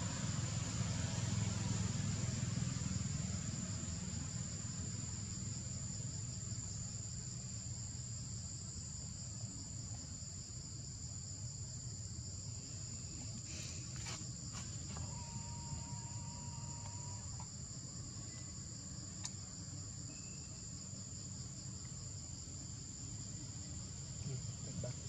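Insects droning steadily in a high, continuous buzz, over a low rumble. A few brief clicks and a short steady tone sound about halfway through.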